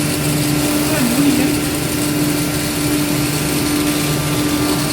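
CNC router spindle running at a steady, even pitch over a hiss.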